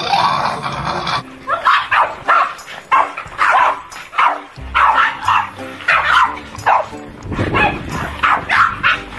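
Small dogs barking repeatedly, about two to three sharp barks a second from about a second in, over background music.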